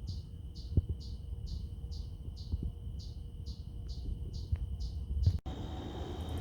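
Insects calling: a rhythmic high chirp about twice a second over a steady high-pitched trill, with a few soft low knocks. The chirping stops abruptly near the end, leaving a fainter trill and a faster, very high pulsing.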